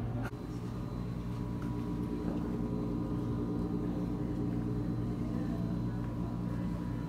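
A steady low hum of several held tones, with a faint knock just after the start.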